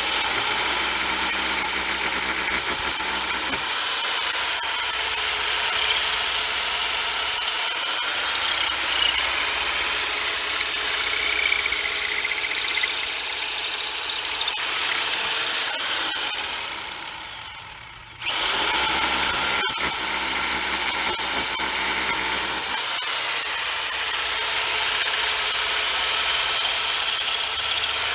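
Power drill boring holes into a cinder block wall, running continuously at full speed; it winds down once about two-thirds of the way through, then starts again abruptly.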